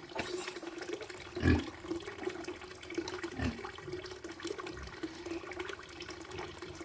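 Water running steadily, with two dull knocks about one and a half and three and a half seconds in.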